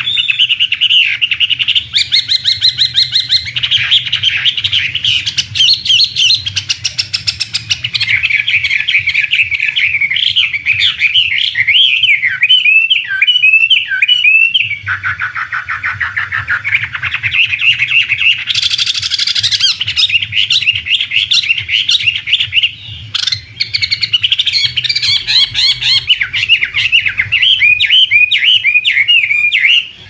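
Chinese hwamei singing a loud, continuous run of rapid, varied warbled phrases, with a short break about halfway through, over a faint steady low hum.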